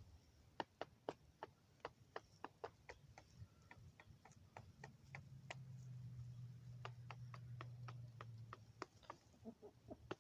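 Chickens pecking at feed: quick, irregular sharp clicks of beaks striking. A low steady hum comes in about four seconds in and fades before the end.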